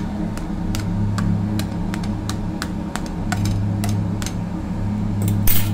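A fork pricking soft pizza dough pressed into a steel plate: a quick, even run of sharp taps as the tines go through to the metal, with a louder clink near the end. A steady low hum runs underneath.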